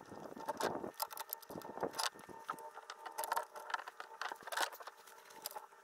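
Irregular light clicks and rustles of a braided anchor rope being twisted by hand at the anchor arm's swivel pulley, with small metallic clinks of the swivel hardware, over a faint steady hum.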